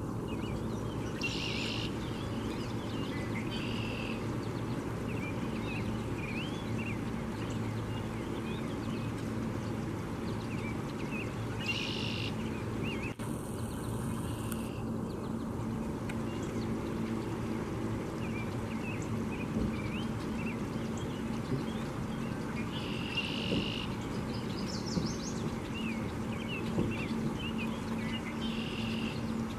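Riverside ambience: a steady wash of shallow river water over rocks and a low steady hum, with songbirds chirping throughout. One bird repeats a short song of about a second every ten seconds or so.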